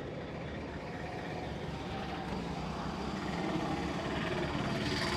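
Steady rumble of street traffic, growing a little louder near the end.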